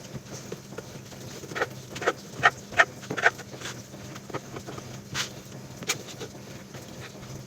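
Scattered knocks and clicks of a knife cutting on a cutting board, irregular strokes clustered in the first half, over a low steady hum.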